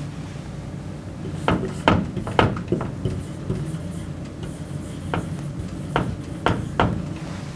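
Dry-erase marker striking and stroking a whiteboard as dashes and letters are drawn: short sharp strokes in a cluster about one and a half to three seconds in, and again from about five to seven seconds in, over a steady low room hum.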